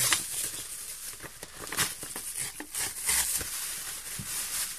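Paper mailer envelope crinkling and tearing as it is handled and pulled open by hand: a run of irregular rustles and sharp crackles.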